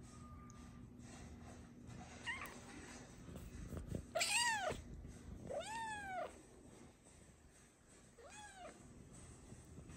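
Snow Lynx Bengal cat meowing three times, each meow rising then falling in pitch, the first the loudest, after a short faint chirp about two seconds in.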